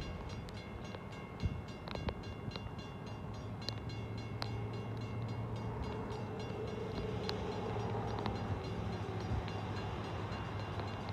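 Union Pacific hy-rail pickup truck running along the track on its rail wheels: a steady low hum with scattered sharp clicks, swelling a little past the middle.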